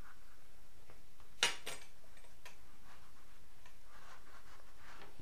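Stiff rawhide sheath and rawhide lace being worked by hand during stitching: one sharp click about a second and a half in, then a few faint ticks and rustles.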